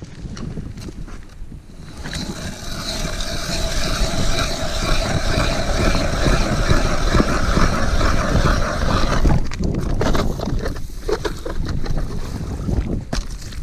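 Strong wind buffeting the microphone, a constant low rumble, with a louder, fuller rush from about two seconds in until about nine seconds.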